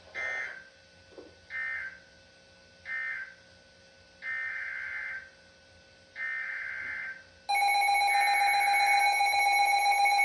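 Emergency Alert System digital data bursts, buzzy warbling chirps: three short end-of-message bursts, then two longer header bursts opening the next alert. About seven and a half seconds in, a loud steady multi-tone alert tone starts over a third header burst, and another tone joins near the end.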